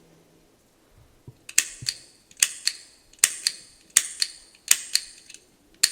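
Vintage Eveready automatic petrol lighter's actuating mechanism being worked over and over: about six sharp double clicks, roughly one every 0.8 s, starting about a second and a half in, as the flint wheel strikes sparks. The mechanism is freshly cleaned and sparks well.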